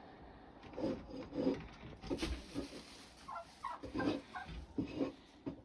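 Irregular rustling and scraping in fresh chicken-coop bedding, with a few brief soft chicken sounds in the middle.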